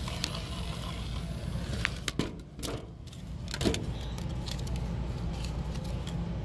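Steady low background hum, with a few sharp clicks and knocks about two to three seconds in and a short falling squeak a little later.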